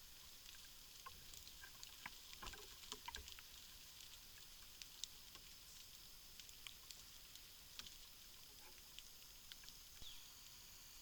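Near silence: a steady high hiss with faint, scattered ticks and rustles, clustered about two to three seconds in.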